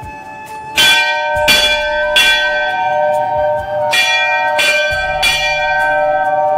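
Large hanging metal temple bell rung by hand with its clapper. There are six strikes in two sets of three, each ringing on into the next.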